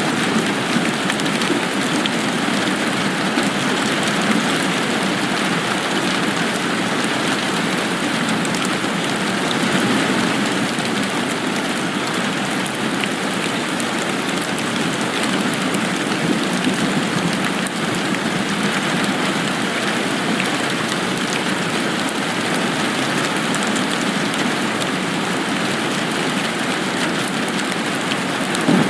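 Steady rain falling, an even patter of drops on surfaces that never lets up.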